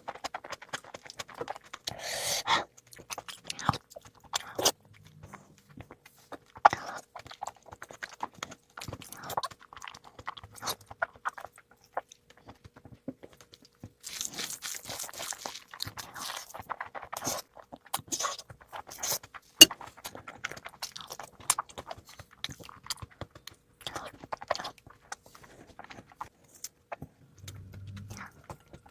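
Close-miked eating sounds: irregular chewing and biting with crunchy bites, wet mouth noises and a few sharp clicks, from a person eating a spicy mutton and chicken meal.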